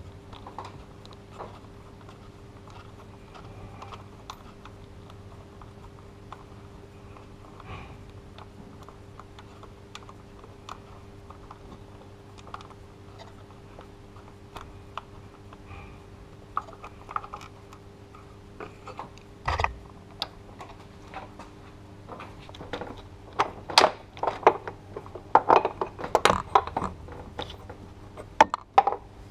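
Socket wrench ratcheting in small clicks on the Mercedes M104 engine's serpentine belt tensioner bolts, then a sharp metal knock and a run of loud metallic clatter near the end as the tensioner assembly is worked free. A steady low hum runs underneath.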